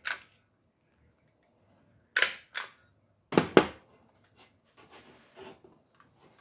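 Stapler driving staples through the belt material: two sharp snapping clicks about a second apart, each a quick double click, then faint handling sounds.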